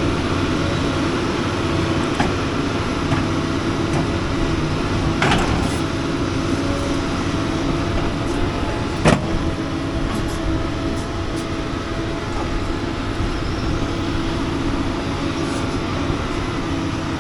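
Doosan excavator's diesel engine running steadily while it works, with a sharp knock about nine seconds in and a lighter one about five seconds in.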